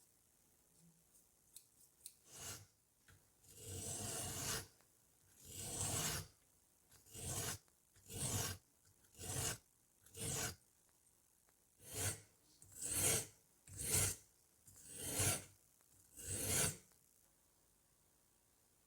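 Restored steel scissors blades working in a dozen separate rasping strokes, roughly one a second, with short quiet gaps between them. A few small clicks come first, and the first stroke is the longest.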